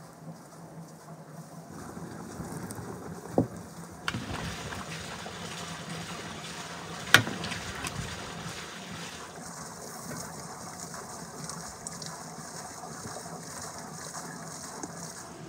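Sauce and broth simmering in a large cauldron, a steady bubbling hiss, with two sharp knocks of a metal ladle against the pot, the second the louder, about seven seconds in.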